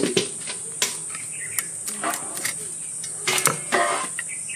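Climbing perch (koi fish) being scaled and cleaned by hand against a boti's iron blade: irregular sharp scrapes and clicks, several close together about three and a half seconds in. A steady high insect chirr runs underneath.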